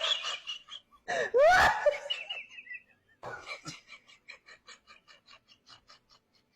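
A person laughing hard: a burst of pitched laughs, then a wheezy, breathy run of short pulses, about four or five a second, that fades out.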